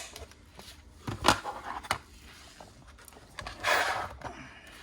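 Scattered small clicks and knocks of tools and parts being moved about on a workbench, with one firmer knock a little over a second in and a short rustling scrape a little before the end.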